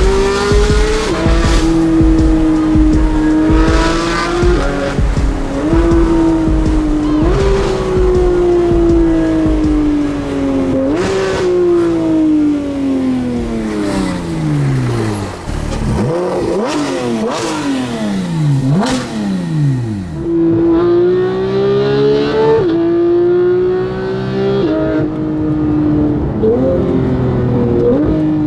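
Porsche 991.2 GT3's flat-six with a full Fi exhaust, revving hard: the pitch jumps up again and again and falls back between shifts. Twice the revs fall away for a few seconds with sharp cracks and pops, then it climbs back through the gears.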